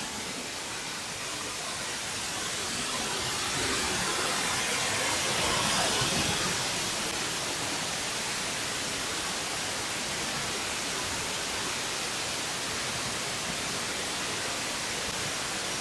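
Steady hissing noise with no distinct events, swelling a little about four to six seconds in.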